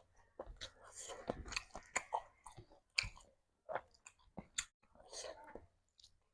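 A person chewing food close to the microphone, with many small irregular mouth clicks and bites.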